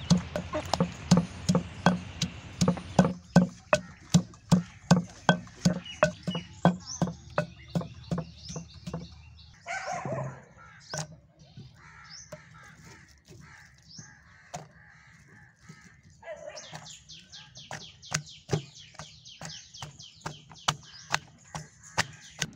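Wooden pestle pounding green mango in a stone mortar: sharp knocks about twice a second. A crow caws about halfway through, and small birds chirp in the later part.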